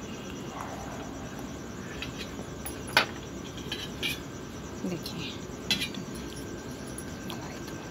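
A knife and bread knocking against a stainless steel plate as a bread sandwich is cut in half and the halves are handled: a few sharp clinks, the loudest about three seconds in. Under it, a steady chirring of crickets.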